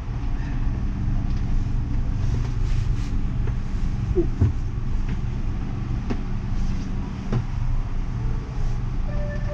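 Running noise heard inside a rubber-tyred Siemens VAL 208 light rail car: a steady low rumble with a faint hum, and a few light knocks and rattles.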